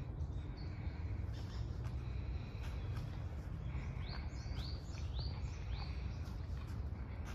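Songbirds calling, with a run of about five quick rising chirps in the middle, over a steady low outdoor rumble.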